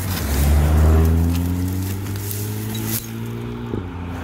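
A passing motor vehicle's engine drone, low and steady, swelling in the first second and stopping shortly before the end, with light crackling of dry grass and stems as a plastic wheel trim is pulled free.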